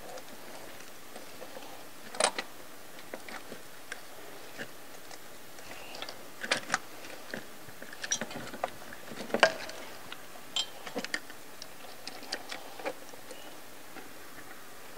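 Irregular small clicks and light taps of hard plastic and metal parts being handled by hand in an engine bay, as wiring-harness clips and fittings are worked loose around the lower intake manifold.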